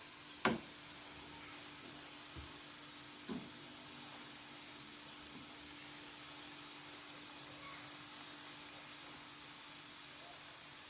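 Small balls of banana dough sizzling steadily in hot oil as they fry to golden brown. A sharp clink about half a second in and a faint knock a little after three seconds.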